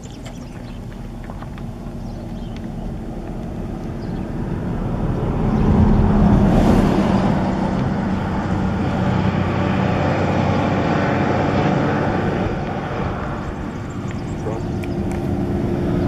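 Engine noise of a motor vehicle, growing louder over the first six seconds and then staying loud as a steady low hum.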